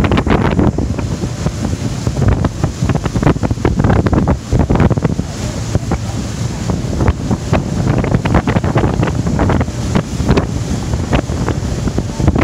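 Wind buffeting the microphone: a loud, uneven rumble broken by frequent gusty crackles.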